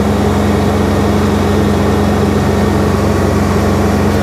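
LS MT342 compact tractor's diesel engine running steadily while the front loader with pallet forks is lowered.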